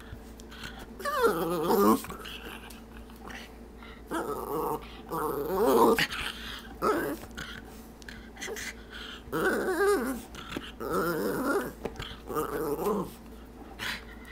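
Schipperke dog 'talking': a series of about seven drawn-out vocal sounds from the dog, each wavering up and down in pitch, with short pauses between them.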